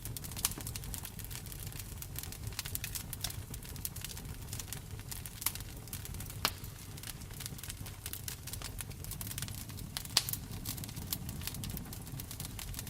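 Wood fire in a fireplace crackling, with scattered sharp pops over a steady low rumble; the loudest pops come about six and a half and ten seconds in.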